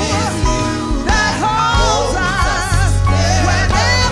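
A gospel praise team singing: a lead vocalist with wavering vibrato over backing singers, with steady instrumental accompaniment underneath.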